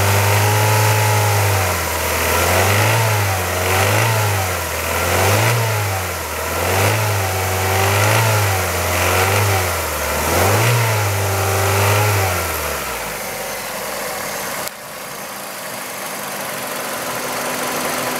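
Warm Kia Ceed 1.6 L G4FC four-cylinder petrol engine revved in about seven short blips, roughly one every second and a half. It then drops away about 13 seconds in, leaving a steady hiss. The owner is recording it to show a rattle noise from the warm engine.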